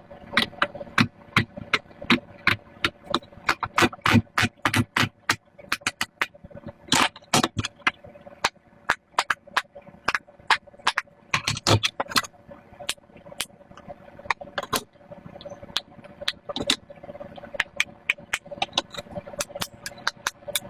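Silicone pop-it fidget toy bubbles being pressed through one after another with the fingers, a fast run of sharp pops, several a second.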